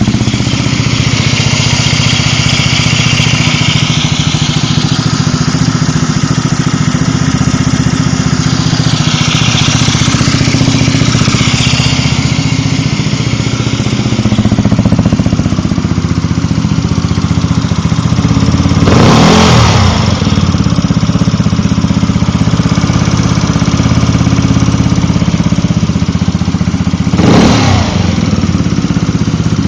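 Yamaha Zuma 125 scooter's single-cylinder four-stroke engine idling steadily, with a ticking from the cooling fan area. The tick is suspected to come from the cam tensioner or the lightweight fan. Two brief louder bursts stand out, several seconds apart, in the second half.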